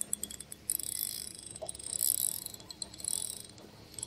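Fishing reel being cranked in several short bursts, its gears giving a fast, fine ratcheting whir with short pauses between the bursts.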